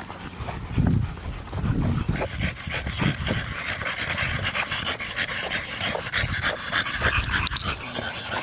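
Two pit bulls and a French bulldog panting as they walk on leash, a sign that the dogs are tired.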